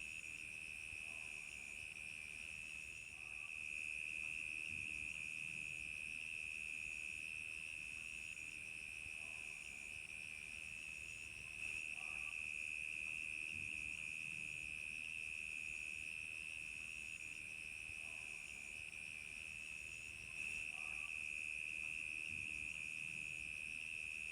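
Crickets chirping in a dense, steady night chorus. A higher call repeats about every second and a half above it.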